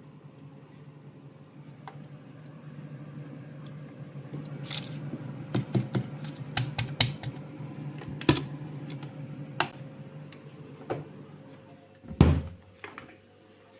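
Sharp clicks and knocks from hands handling small hard parts during refrigerator repair work, at times several a second, over a steady low hum; one louder low thump about twelve seconds in.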